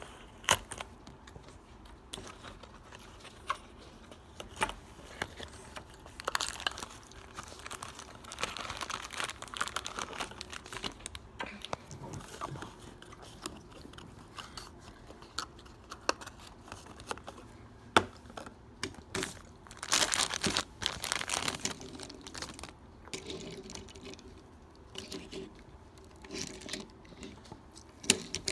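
Unboxing a die-cast toy truck by hand: a cardboard box and its plastic wrapper being opened and handled. Scattered sharp clicks and taps, with several stretches of crinkling plastic.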